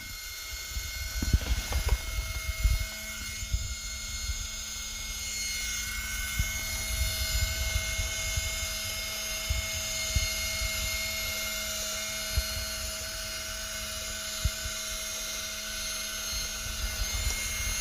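RC servo winch motor running steadily with a high-pitched whine as it reels in line and pulls the scale crawler along, with scattered light knocks from the truck's chassis and wheels.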